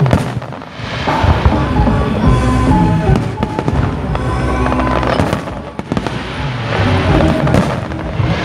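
Aerial fireworks going off: several sharp bangs over a dense crackling, with music playing along with them.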